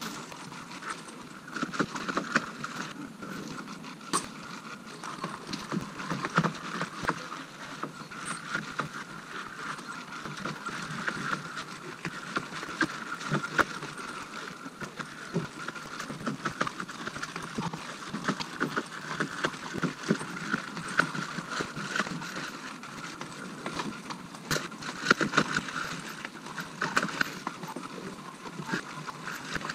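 Irregular clinks and knocks of thin lake ice breaking up as an ice breaker is hauled back across it on a rope.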